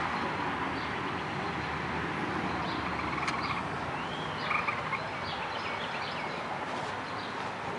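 Steady outdoor background noise with birds chirping several times, the calls clustering in the middle, one of them a short rising-and-falling call.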